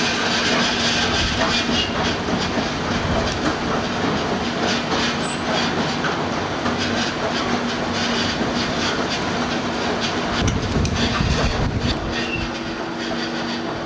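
Bulk-loading conveyor and chute running over a barge hold: a continuous clattering hiss with a steady low hum. A second, higher hum comes in near the end.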